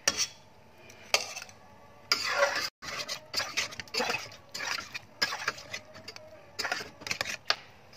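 Metal spatula stirring pieces of meat curry in a steel pot: irregular scrapes and clinks of the spatula against the pot.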